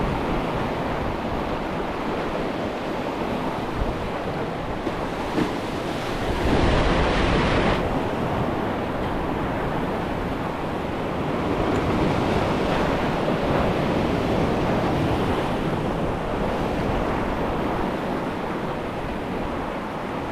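Surf washing over a rocky shoreline, with wind buffeting the microphone. A wave breaks close by about six and a half seconds in, the loudest moment, and another swell of surf builds a few seconds later.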